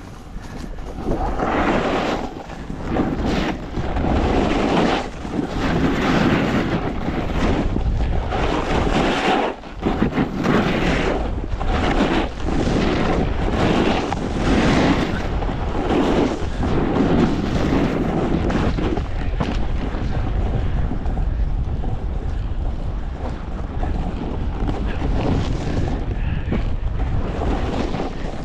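Wind buffeting the camera microphone while a snowboard slides down a groomed slope, its edge scraping across the snow. The scraping swells and fades about once a second for the first two-thirds, then runs steadier.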